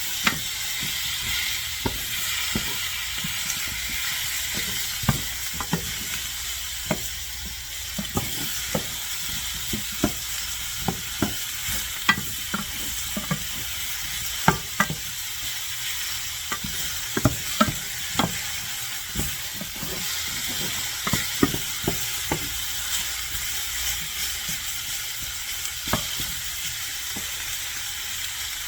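Chicken strips and vegetables sizzling in olive oil in a pan on medium-high heat, a steady frying hiss broken by frequent irregular clicks and knocks of a utensil stirring against the pan.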